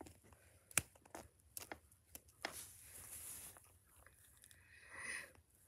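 Small plastic toy cat figurines being handled and set down on concrete: a few sharp clicks and taps with light scraping.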